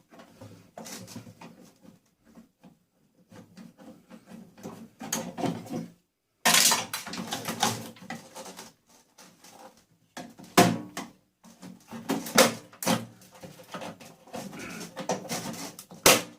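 Irregular clatter and knocks of metal and plastic parts being handled and pulled apart while an appliance is stripped for scrap, with several louder bangs.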